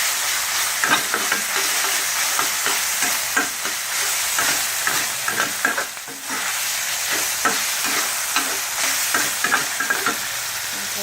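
Ground pork stir-frying in a hot pan: a steady sizzle, with the spatula scraping and tapping against the pan many times. The sizzle dips briefly about six seconds in.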